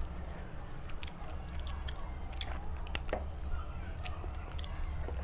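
Close-miked chewing of gulai tempoyak, a soft fermented-durian curry, with scattered wet mouth clicks. A steady low hum and a thin high whine run underneath.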